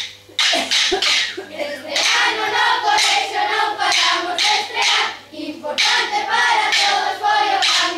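Children singing a folk song together while clacking short wooden sticks in a steady rhythm.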